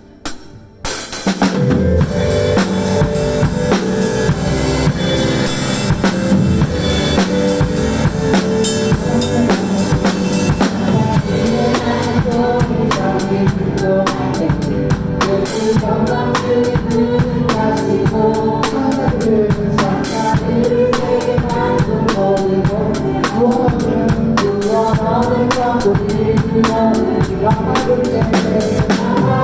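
Drum kit played along with a worship-song backing track. The band and drums come in together with a crash about a second in, then run on with a steady beat of bass drum and snare under the pitched accompaniment.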